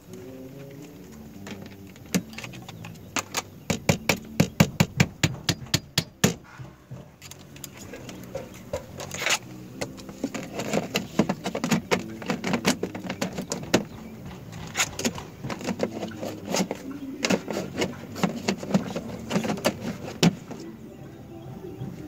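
Construction work on vinyl soffit: bursts of rapid sharp knocks and clicks, fastest and loudest a few seconds in, then coming in shorter clusters.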